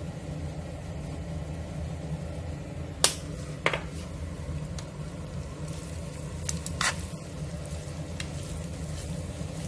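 Pasta in a pan on low heat sizzling faintly while metal tongs toss it, with a few sharp clicks of the tongs against the pan about three and four seconds in and again about seven seconds in. A steady low hum runs underneath.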